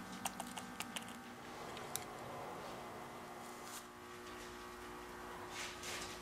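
A few light clicks and taps as a metal spring clamp is set over sandpaper pads on a freshly glued wooden piece, most of them in the first two seconds, then soft handling rustles.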